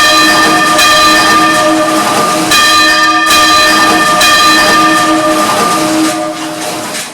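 A single church bell swinging and ringing freely, its clapper striking again every second or two so the hum and overtones ring on continuously. The ringing dies away near the end.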